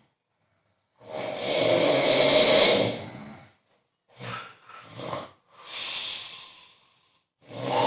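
A man snoring very loudly in his sleep. A long snore comes about a second in, then three short snorts and breaths, and another loud snore starts near the end.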